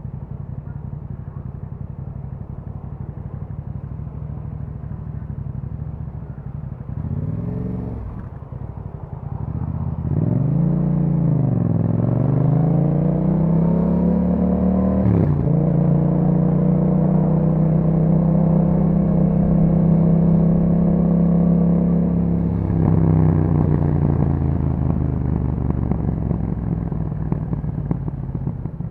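A Yamaha MT-07's parallel-twin engine through an Akrapovic exhaust while riding. It runs steadily at low revs at first, with a short blip of the throttle about seven seconds in. From about ten seconds it accelerates with rising revs, drops sharply at a gear change about fifteen seconds in, and holds a steady, louder note before the throttle closes near twenty-three seconds and the revs fall away.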